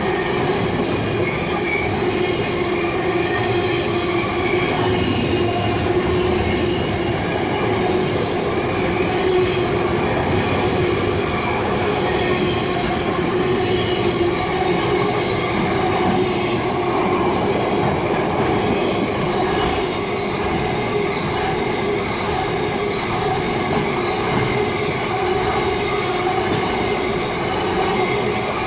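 Long freight train rolling past at close range: a continuous loud rumble of wagon wheels on the rails, with steady wheel squeal from the wagons' wheels.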